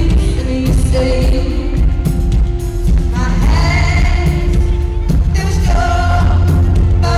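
Live pop ballad played through an arena sound system: a female lead vocal singing sustained lines over a full band with heavy bass.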